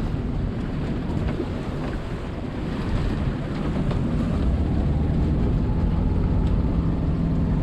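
Wind buffeting the microphone over a low rumble. From about four seconds in, a steady boat engine drone grows louder.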